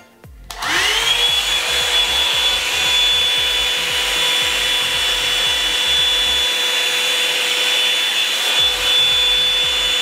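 Revlon One Step Hair Dryer & Volumizer, a hot-air brush, switched on at its high setting about half a second in. Its motor spins up with a rising whine, then runs steadily with a high whine over rushing air.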